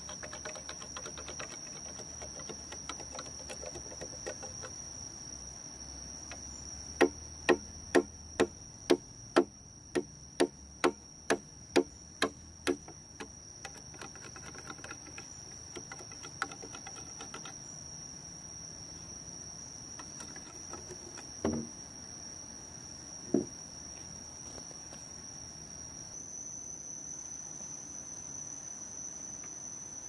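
A steady, high-pitched insect drone, like crickets or cicadas, with a run of about a dozen sharp knocks, two a second, that fade slightly. Two more single knocks come later.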